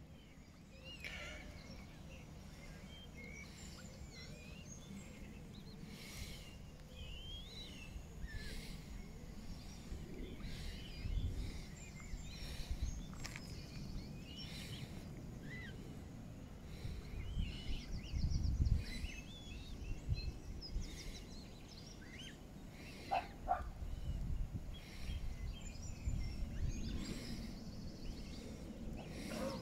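Birds chirping and calling, short scattered calls throughout, over a low rumble that swells now and then.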